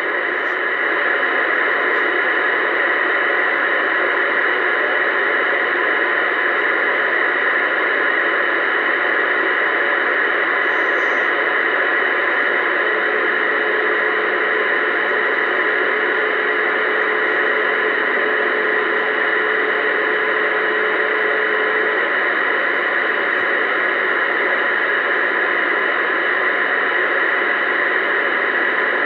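Uniden Bearcat 980SSB CB radio on channel 19 AM, its speaker giving steady static hiss with nobody talking. A faint low steady whistle comes in for about ten seconds in the middle.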